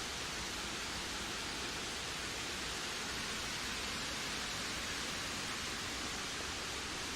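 Steady wind: an even rushing hiss that keeps the same level throughout, with no gusts.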